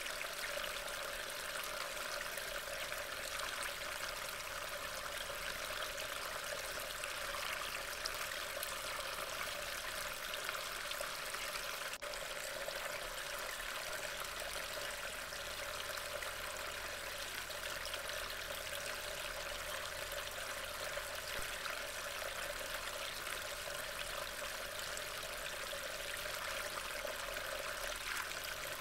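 Steady rain, heard as a continuous even hiss through a trail camera's small microphone.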